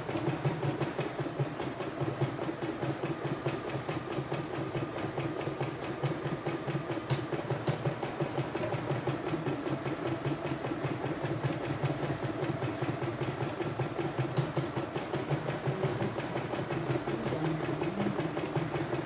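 CNY E960 portable embroidery machine stitching an embroidery design, its needle running at a steady, rapid, even rate.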